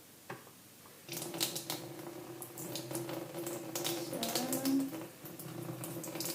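Kitchen tap running with a steady hum from about a second in, while a spoon clinks repeatedly as water is spooned into the garlic dip.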